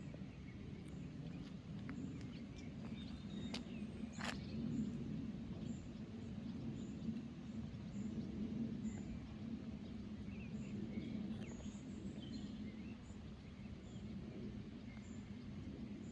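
Outdoor ambience: a steady low rushing noise under a faint high chirp that repeats about every half second, a couple of clicks near the start, and a few short bird calls later on.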